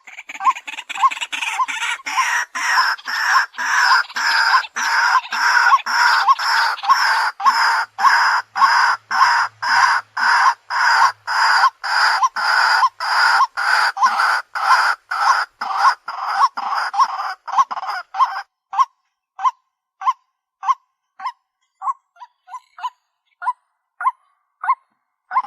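White-breasted waterhen calling: a long run of loud repeated notes, about two a second, which in the last third thin out into short, quieter notes spaced apart.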